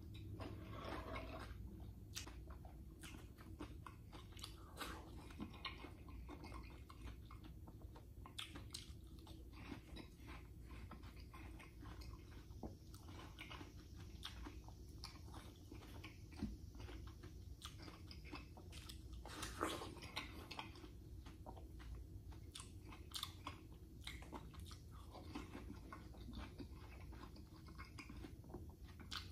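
A person biting into and chewing juicy watermelon close to the microphone: irregular wet crunches and mouth sounds, with one louder bite about twenty seconds in, over a low steady room hum.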